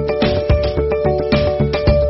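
Background music with a steady beat and a deep bass line under held melodic notes.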